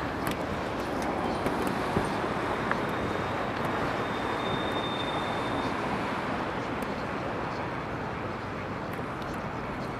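Steady outdoor background noise, an even hiss with a few faint clicks and a thin high tone for about two seconds near the middle.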